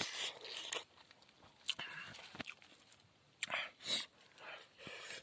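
A person eating close to the microphone: irregular crunching and chewing, with short rustles and clicks as food is handled.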